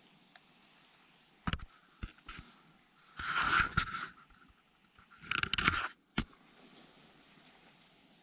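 Scraping and crunching in short bursts: a few sharp knocks, then two longer scrapes about two seconds apart, and a last click.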